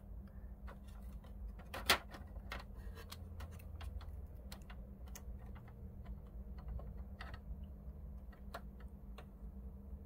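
Irregular light clicks and taps, a sharper click about two seconds in, over a low steady hum.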